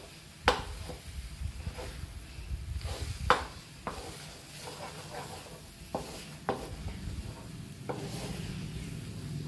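Wooden spatula stirring thick moong dal halwa in a nonstick frying pan: a soft scraping and faint sizzle of the ghee-rich mass, broken by a few sharp knocks of the spatula against the pan, the loudest about half a second in and at about three and a half seconds. The halwa has thickened to the stage where it starts to pull together, nearly done.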